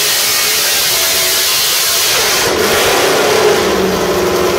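Carbureted 358 cubic inch small-block Chevrolet V8 race engine running hard at high rpm on an engine dyno; about halfway through its note drops as the revs come down.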